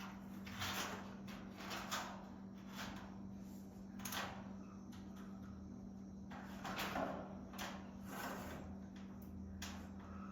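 Irregular short scrapes and rasps of tools working the garage door's spring hardware as it is tightened, over a steady low hum.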